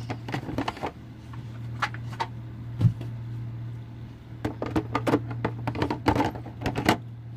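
Tarot cards being handled and set down on a tabletop: a scatter of short taps and clicks, the sharpest about three seconds in, over a steady low hum.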